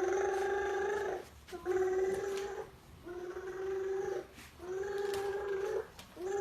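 A young girl's voice making funny wordless noises: four held, steady-pitched tones of about a second each with short breaks between them, somewhat like an animal's whine.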